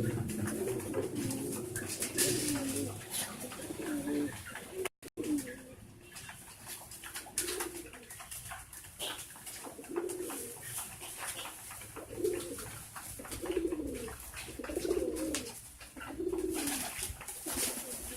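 Domestic pigeons cooing, low and repeated, near-continuous at first and then in separate coos about every second and a half. The sound cuts out briefly about five seconds in.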